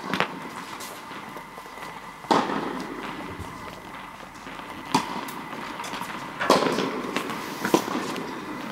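Tennis ball hits: about five sharp pops, one to two and a half seconds apart, each trailing off in a short echo.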